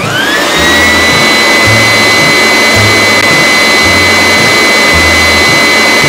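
Cordless stick vacuum cleaner running: its motor whine rises as it starts, then holds a steady high whine over a loud rush of air.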